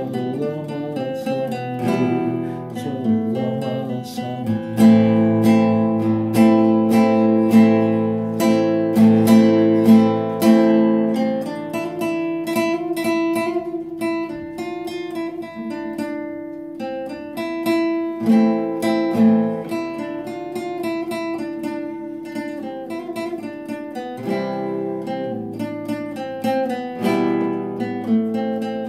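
Nylon-string classical guitar played solo, an instrumental break of plucked and strummed notes over sustained bass notes, a little louder in the first half, with no singing.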